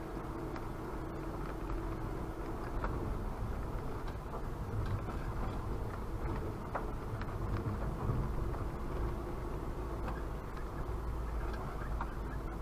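A vehicle driving slowly over a snow-covered dirt track, heard from inside the cabin: a steady low engine and tyre rumble with scattered light knocks and clicks.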